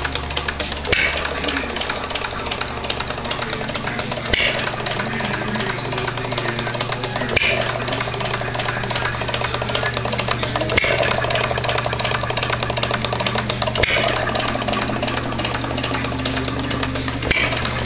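Perkins sideshaft hit-and-miss gas engine running, with a sharp firing stroke about every three to three and a half seconds (six in all) and a steady mechanical clatter while it coasts in between.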